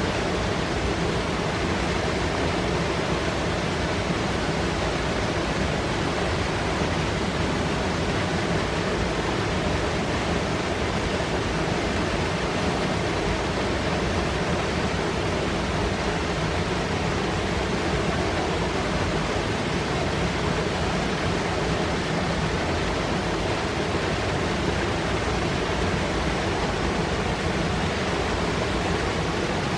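Fast mountain river rushing and foaming over rocks: a steady, dense noise of strong water with no let-up.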